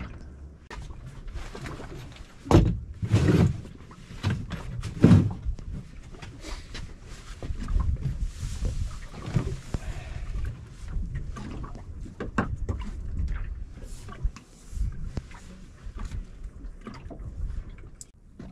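Water lapping against the hull of a small drifting boat, with three loud knocks in the first five seconds.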